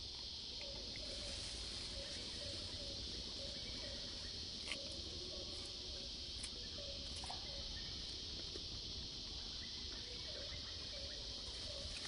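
Steady high-pitched insect chorus, with a few faint short clicks scattered through it.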